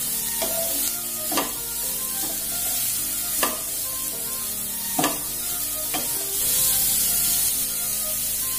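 Chopped cabbage, carrot and onion sizzling in hot oil in a nonstick frying pan as they are stirred with a spatula, with a few sharp knocks of the spatula against the pan.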